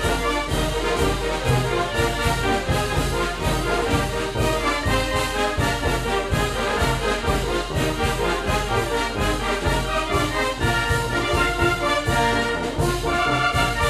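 Oaxacan brass band (banda de música) playing a son y jarabe: brass carries the melody in full chords over low bass notes and a steady percussion beat.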